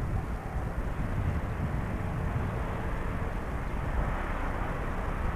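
Steady outdoor rumble, uneven and strongest in the low end, with no distinct events.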